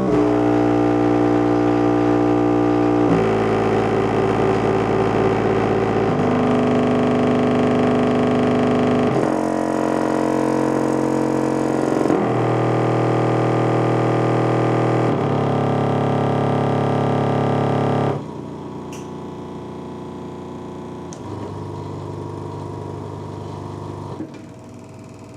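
Soundqubed HDC3 15 subwoofer playing a stepped sweep test: loud, steady test tones, each held about three seconds before jumping to a new pitch. The tones become much quieter about two-thirds of the way through.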